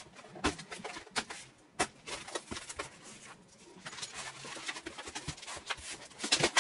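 Cardboard box being opened by hand: flaps pulled open and packaging rustling, with many short scattered clicks and scrapes.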